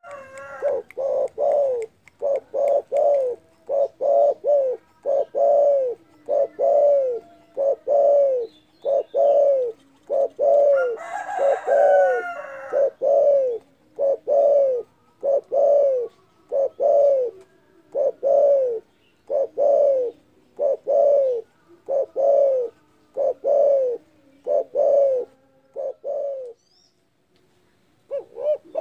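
Spotted dove (derkuku) cooing loudly and without pause: a long run of low, arched coos, roughly one to one and a half a second, breaking off near the end. A brief burst of higher bird chirps is heard about halfway through.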